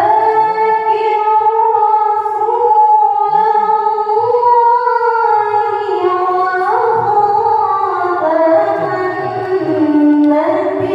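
A woman reciting the Qur'an in melodic tilawah style into a microphone, drawing out long held, ornamented notes in one continuous phrase that steps down to a lower pitch near the end.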